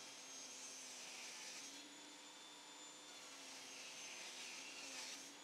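Near silence: a faint, steady room hum and hiss with a thin high whine, and no distinct events.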